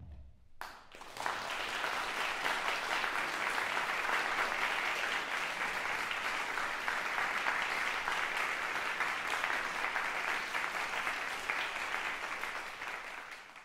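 Audience applauding. It breaks out about a second in, holds steady, then fades and cuts off near the end.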